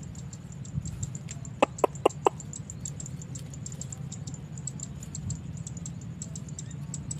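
A chicken clucking four times in quick succession, over a rapid high-pitched ticking and a steady low rumble.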